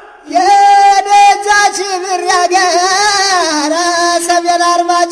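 Traditional Ethiopian song: a long, wavering melody line held on a few notes, with no words sung, loudest just after it begins.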